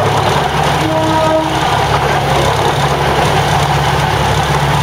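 Diesel railcar engine running steadily as the train moves slowly, heard from inside the carriage as a continuous low hum. A short pitched tone, broken in two, sounds about a second in.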